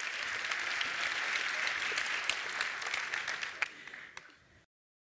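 Audience applauding, a dense patter of many hands clapping. It fades and then cuts off abruptly about four and a half seconds in.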